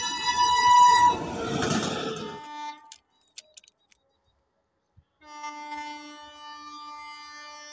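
A locomotive horn blares, then stops about a second in as a train's rumble rises and cuts off abruptly. After a couple of seconds of near silence, a distant approaching locomotive sounds one long steady horn blast of about four seconds, swelling near the end.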